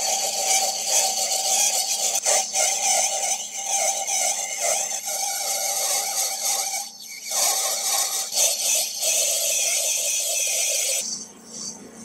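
Metal lathe turning down a metal rod: the cutting tool scraping steadily along the spinning stock over a steady whine. The cut breaks briefly about seven seconds in and drops away about a second before the end.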